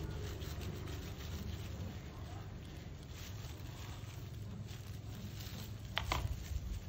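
Soft rubbing and scraping of a dye brush worked through goat hair by a plastic-gloved hand. A sharp tap about six seconds in as the tool goes into the plastic dye tub.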